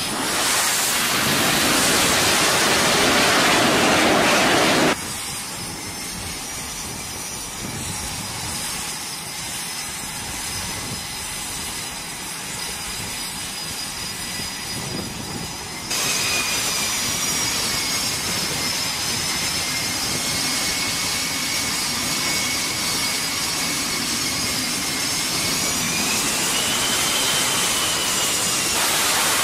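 F/A-18 Super Hornet jet engines on a carrier deck. A loud jet roar is heard as a jet lands, then the sound cuts abruptly twice to the steady running whine of jets on deck. Near the end a high whine rises as an engine spools up.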